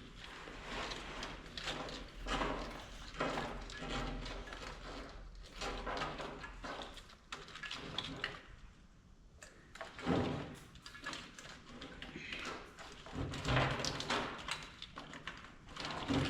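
Irregular scraping, rustling and knocking of a wiring harness being handled and routed through a truck's engine bay, with a brief lull about halfway through.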